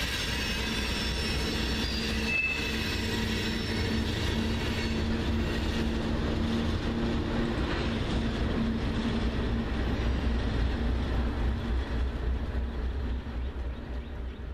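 Freight train of tank cars rolling past on a curve: steady rumble and clatter of steel wheels, with thin high-pitched wheel squeal in the first few seconds. A Union Pacific diesel locomotive at the rear goes by, and the sound fades toward the end as the train clears.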